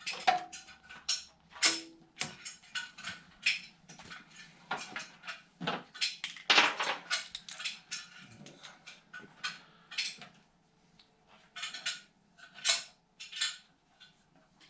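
Scissors snipping pie cuts into rubber fender welting, followed by small metal tools and parts clicking and clinking as they are handled. An irregular string of sharp clicks, a few with a brief metallic ring.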